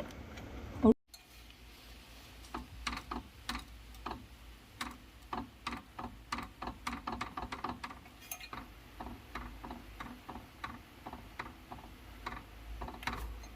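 Toyota Yaris radiator cooling fan motor clicking and knocking irregularly, several times a second, with one louder knock about a second in. The knock comes from the motor's rear shaft mounting hole being worn oversize, so the shaft rattles in it.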